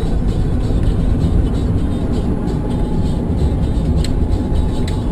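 Steady road and engine noise of a moving car, with two brief clicks near the end.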